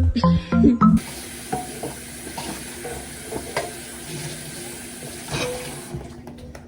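Food sizzling steadily in a hot pan, with a few sharp clicks and pops, cutting off near the end; a snatch of music plays in the first second.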